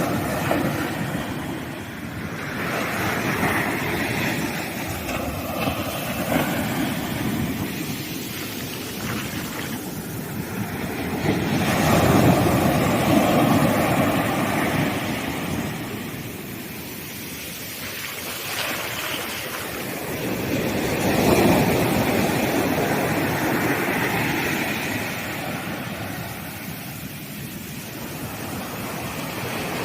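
Sea waves breaking on a sandy beach, a continuous wash that swells and fades, with the biggest surges about twelve seconds and twenty-one seconds in.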